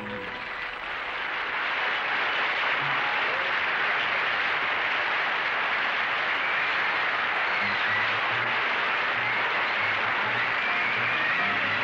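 Studio audience applauding after a pop song ends. The clapping swells over the first couple of seconds and then holds steady.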